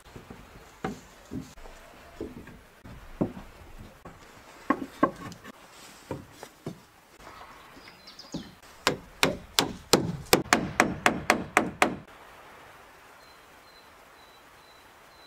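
Wooden planks being nailed up by hand: scattered wooden knocks and taps, then a rapid run of hammer blows, about four a second, for some three seconds. The blows stop about twelve seconds in.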